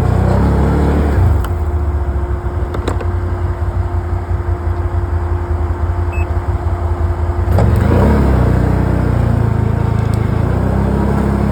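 A vehicle's engine revving under load as the driver tries to back out of deep snow where the vehicle is stuck. It pulls hard for about a second at the start, runs lower for several seconds with a steady thin whine, then revs hard again for the last few seconds.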